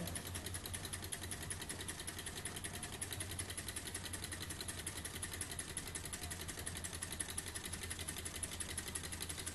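Tarot beam-type Stirling engine running steadily on its spirit-burner flame. Its beam linkage and flywheel make a fast, even clicking rattle.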